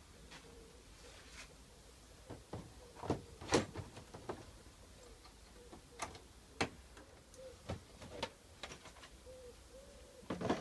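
Irregular knocks and clacks from the plastic panels of a Snap Lock chicken coop being handled as it is opened up to change the bedding, the loudest near the end as the roof panel is lifted off.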